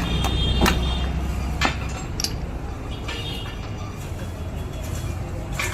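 A steady low rumble of vehicles, with a few sharp metallic clinks, the two loudest in the first two seconds.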